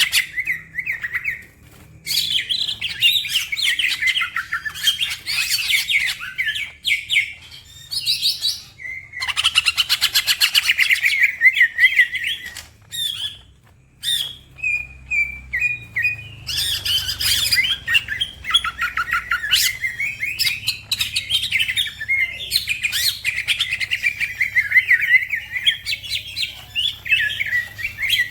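Green leafbird (cucak ijo) singing loudly in long, fast, chattering and warbling phrases, broken by a few short pauses.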